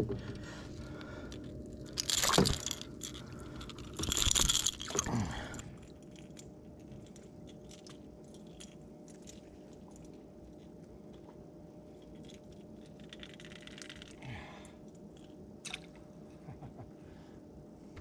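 A small snook splashing and thrashing at the side of a small boat as it is landed by hand: two loud bursts of splashing about two and four seconds in, then faint knocks and scrapes of handling.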